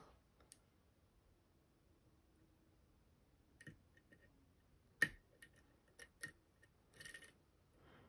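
Faint, scattered metallic clicks of a hook pick lifting and setting the pins of a Goal P pin tumbler lock under tension, with the sharpest click about five seconds in.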